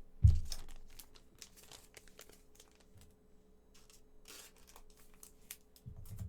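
Trading cards and their packaging being handled: a low thump just after the start, then a run of crinkling, rustling and light clicks as cards are sorted through.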